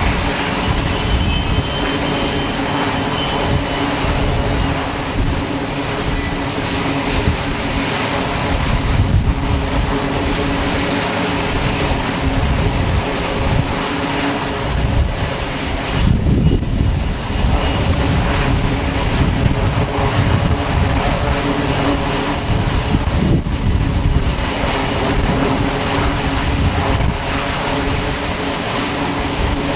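Jet aircraft engines running on a carrier flight deck: a loud, steady rush with a steady hum and a faint high whine. The sound breaks off briefly twice, near the middle and about two-thirds of the way through.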